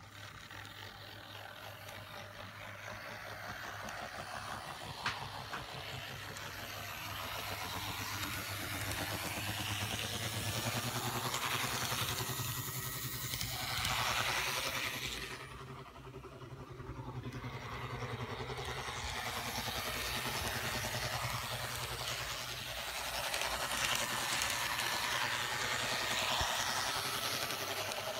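Kato Hankyu 6300 N-scale model train motor car running noisily around a layout, a continuous mechanical running noise over a steady low hum. It grows louder over the first ten seconds, dips for a couple of seconds just past the middle, then returns.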